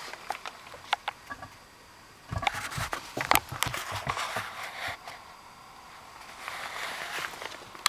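Footsteps shuffling through straw on a plank floor: a few sharp knocks and two stretches of rustling, with quieter pauses between.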